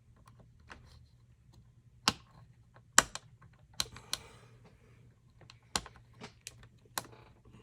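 Irregular clicks and clacks of small parts of an airsoft AEG gearbox being handled and set down on a workbench, with about half a dozen sharper knocks spread through.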